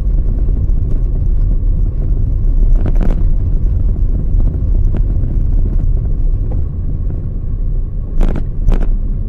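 Steady low rumble of a moving vehicle's road and wind noise, with a few brief knocks, about three seconds in and twice near the end.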